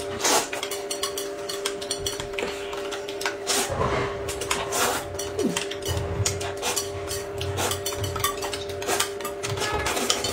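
Eating sounds: noodles slurped in bursts, with chopsticks and a spoon clicking and clinking against a plate and a glass cup. A steady tone runs underneath.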